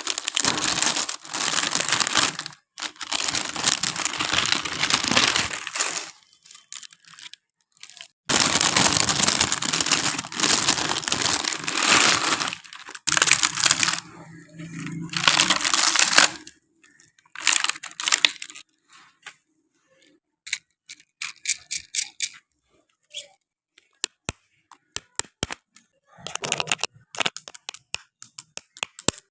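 Toy packaging being torn open and crinkled in several long noisy stretches, followed in the second half by a scattered run of sharp clicks and taps.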